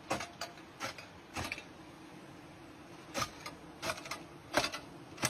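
Irregular sharp clicks and taps, about a dozen, over a faint steady hum.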